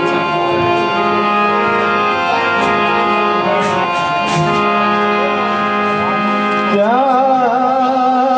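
Harmonium playing held notes of a ghazal melody with light tabla strokes underneath; about seven seconds in, a male voice comes in singing a wavering, ornamented note.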